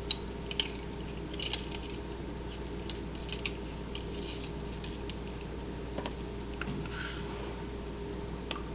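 Light clicks and taps of a spice jar and a metal measuring spoon as mustard seed is scooped out, over a faint steady hum.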